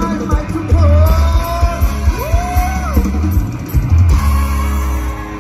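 Loud live mor lam band music with a strong bass beat and a lead voice holding long, sliding notes.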